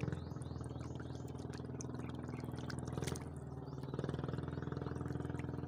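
Light splashing and dripping of shallow water as a hand works in it, with small clicks, over a steady low hum like a running motor.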